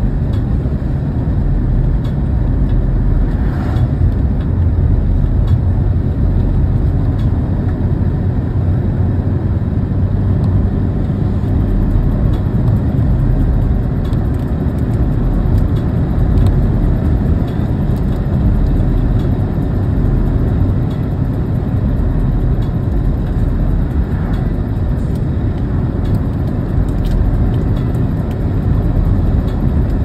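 Steady low rumble of a car driving along at an even speed: tyre and engine noise with no rise or fall.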